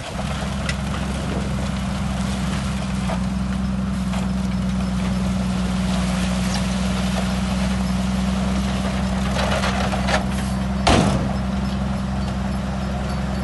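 Heavy diesel engine of an earthmoving machine running steadily at a constant speed. A single sharp metallic knock comes about 11 seconds in.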